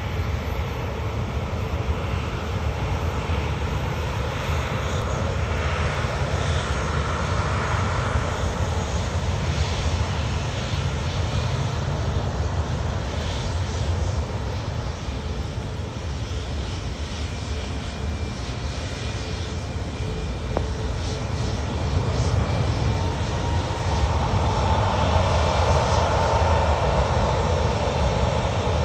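Jet engine noise from Boeing 737 airliners on a rain-soaked runway, steady for most of the time. It grows louder over the last several seconds, with a rising whine, as a 737 MAX 8's CFM LEAP-1B engines go to takeoff power and throw spray off the wet runway.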